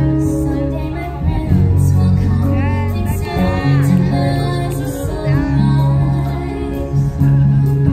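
Live Hawaiian hula music: plucked strings over a steady bass line, with a singer's voice carrying the melody.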